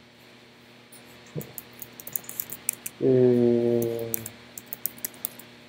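Scattered light clicks from a computer keyboard and mouse. About three seconds in, a man gives a drawn-out, low 'mmm' lasting about a second.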